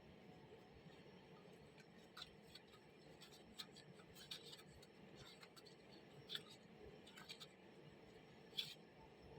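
Near silence: faint room tone with a few light, scattered clicks and taps, the sharpest one near the end.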